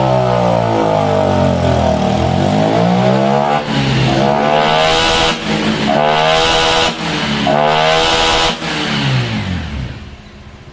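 Honda Vario 125 scooter's single-cylinder engine revved up and down about four times, its pitch rising and falling with a hiss over each rev, then dropping back and going much quieter near the end.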